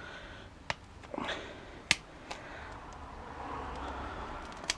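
A few sharp clicks and a low, steady scraping noise as a small electric motor is worked apart by hand to pull out its copper windings.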